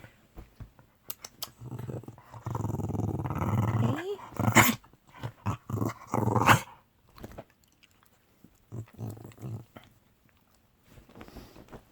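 Dog having an excited coughing spell, which the owner says is different from his usual excited sneezing. It opens with a low, rough stretch of a couple of seconds, then two sharp coughs about two seconds apart, and fainter coughs later.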